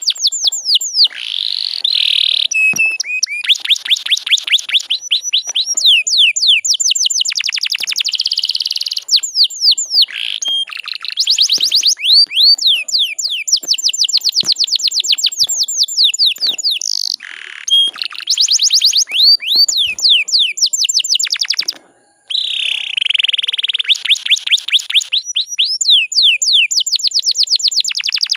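Canary singing: rapid trills of repeated notes sweeping down in pitch, with changes of phrase and one brief silent break near the end.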